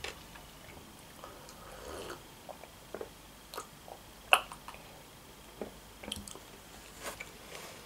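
Faint close-up mouth sounds of eating and drinking: soft chewing and swallowing with sips from a mug, and a scatter of small wet clicks, the sharpest about halfway through.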